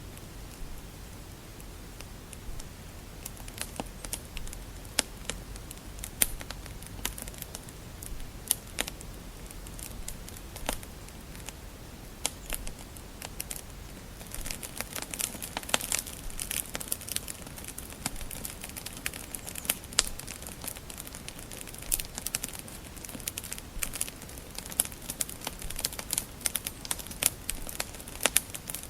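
Wood fire burning in a fireplace, crackling and popping irregularly over a low steady rumble; the crackles grow thicker and sharper about halfway through.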